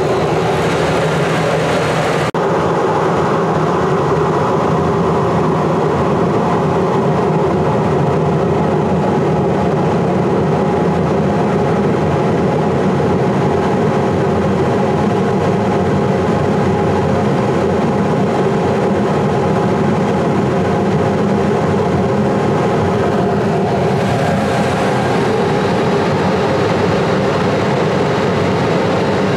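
Boiler burner's combustion-air blower running steadily, a loud hum of several steady tones, as the boiler goes through high-fire prepurge. A brief hiss in the first two seconds cuts off abruptly.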